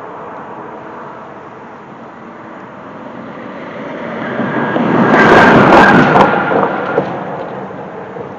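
Highway traffic with one road vehicle passing close by, its noise swelling to a peak about five to six seconds in and then fading away.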